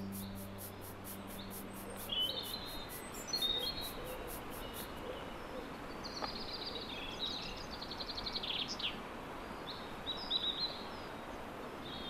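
Birds chirping and twittering in short scattered phrases over a steady background hiss, part of a background soundtrack. A low held musical tone fades out about two seconds in, and a fast high ticking of about four a second stops about five seconds in.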